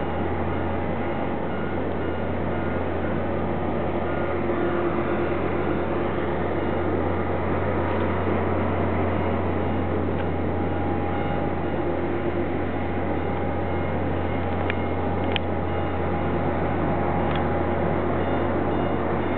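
Boeing 737-800 being pushed back by an aircraft tow tractor: a steady mechanical hum with a low rumble and several steady whining tones held above it. There are a few faint ticks about three-quarters of the way through.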